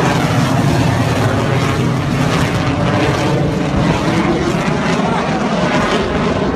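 Fighter jet's engines, a loud, steady jet roar as the aircraft flies past overhead and away.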